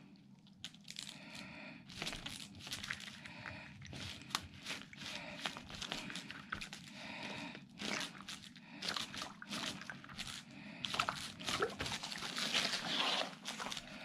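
A rubber balloon being rubbed and squeezed by hand, with irregular scratchy rubbing, crinkling and short squeaks of the rubber.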